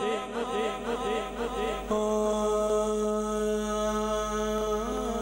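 Male naat singer's voice through a PA system: a run of quick rising-and-falling vocal ornaments, then from about two seconds in, one long held note.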